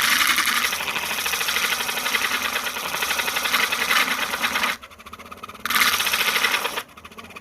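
A blade being sharpened against a sandpaper disc spun by a small 12-volt DC motor: a steady abrasive grinding hiss. It breaks off once for about a second and then comes back briefly before stopping near the end.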